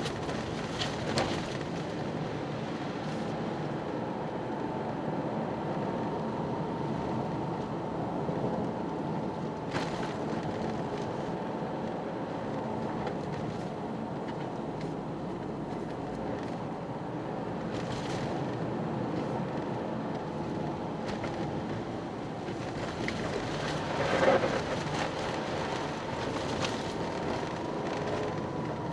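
Toyota GR Yaris's turbocharged three-cylinder engine and its studless tyres running steadily while cruising, with a few short knocks, the loudest about 24 seconds in.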